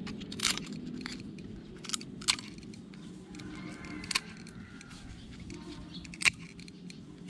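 Pruning shears snipping and cracking into a dry cẩm lai (rosewood) seed pod to free the seed: several short, sharp crunching clicks, spaced a second or two apart.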